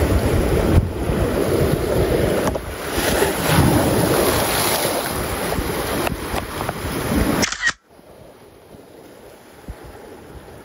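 Surf washing against shoreline rocks with wind buffeting the microphone, which cuts off suddenly about three-quarters of the way through to a much quieter, steady hiss.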